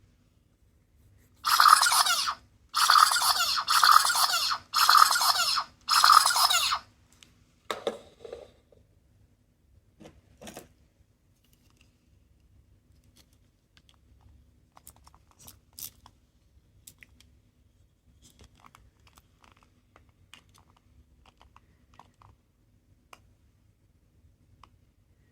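A small sound-making capsule toy plays five short, harsh, buzzy bursts through its tiny speaker in quick succession. Faint clicks and rustles of the toy being handled follow.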